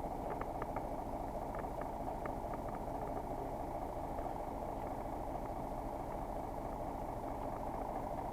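Steady engine hum of a bus running, with faint light ticks now and then.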